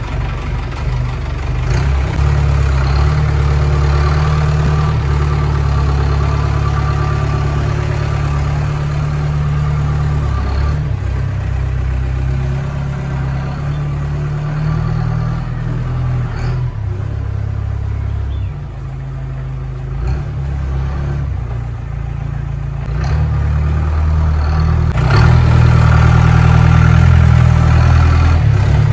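Mahindra jeep's engine running as the jeep drives slowly, with a deep steady drone that swells a few seconds in, eases off past the middle, and swells again near the end.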